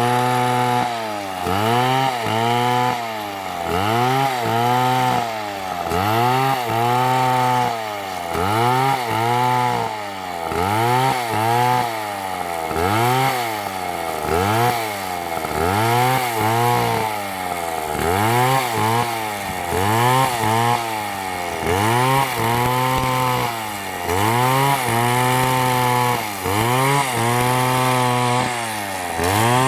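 An MS720 two-stroke chainsaw running under load in a cut, its engine pitch rising and dipping again and again, about once every second and a quarter, as the saw is worked through the wood.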